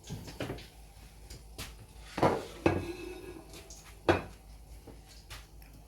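Kitchen dishes and utensils knocking together while the fried chicken is being garnished: a few soft clinks and three louder knocks about two, two and a half, and four seconds in.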